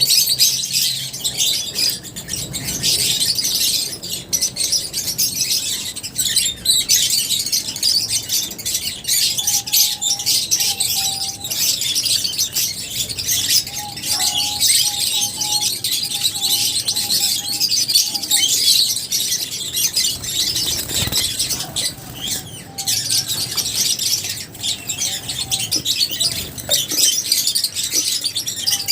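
A flock of lovebirds chirping constantly, many high, overlapping calls.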